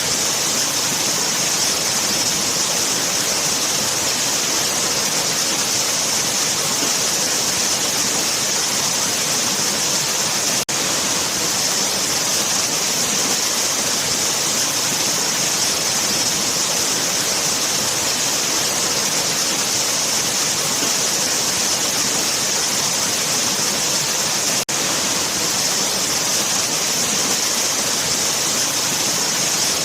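Waterfall: a steady, even rush of falling water, with the hiss strongest in the high range. The level dips very briefly twice, at about 11 and 25 seconds.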